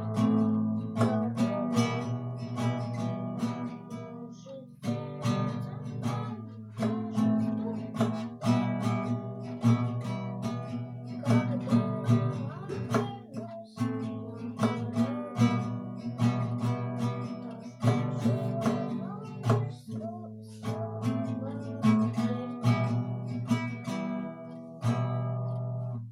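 Acoustic guitar strummed in a steady rhythm, chord after chord, stopping abruptly at the very end.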